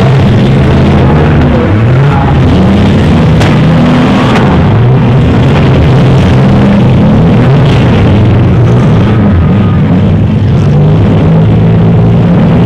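Several front-wheel-drive demolition derby cars' engines revving hard, their pitches rising and falling over one another, with a few bangs of cars colliding.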